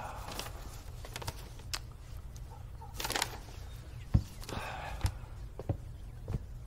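Scattered soft clicks and knocks with faint rustling of clothing, as people shift about and someone walks off across the room, over a low steady room hum.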